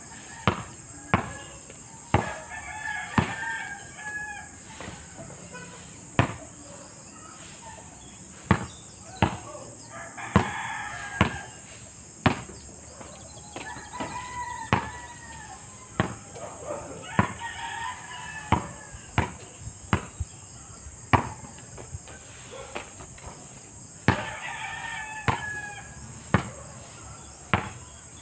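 A basketball bouncing on an asphalt court in single sharp bounces every second or two, while roosters crow about five times in the background over a steady high-pitched hiss.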